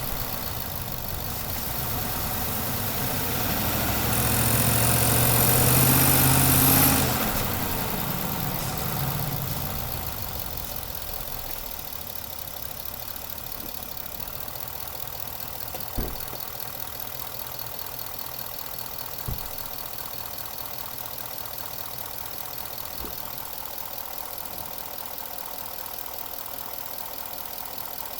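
2018 Ford F-150 V8 engine pulling harder for several seconds under acceleration, the condition in which the owner reports a knocking noise, then dropping back abruptly to steady, quieter running. A few sharp clicks come later.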